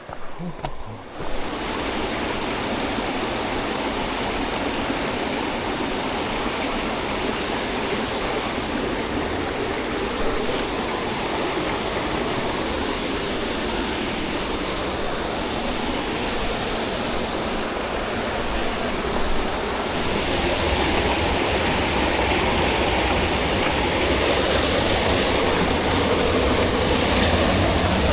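Steady rush of falling and running water from a waterfall and its stream, growing a little louder about two-thirds of the way through.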